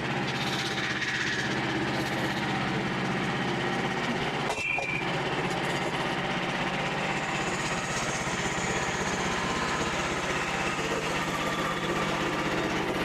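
An engine running steadily at a constant speed, with a brief sharp sound about four and a half seconds in.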